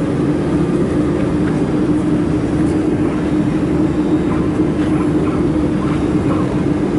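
Steady whir with a hum from the fans of a 200 W mould-repair laser welding machine and its dust collection unit running, with a few faint ticks about two-thirds of the way through.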